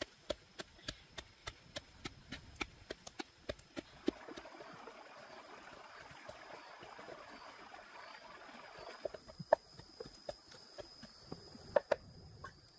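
Knife chopping on a wooden board, about three strokes a second, for the first four seconds. Then a steady hiss for about five seconds, followed by a few scattered sharp knocks. A thin, steady high whine runs underneath throughout.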